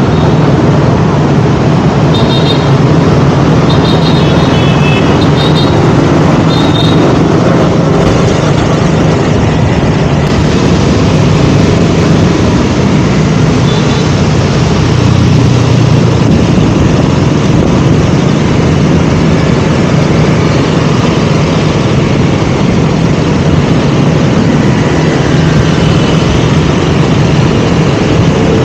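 KTM Duke 200's single-cylinder engine running steadily under way, with wind and road noise. A few short high-pitched beeps sound a few seconds in.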